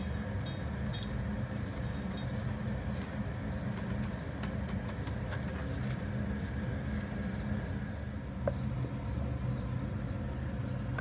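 Electric mixer grinder's motor running steadily, grinding whole spices into chaat masala powder in its steel jar: a continuous whirring drone.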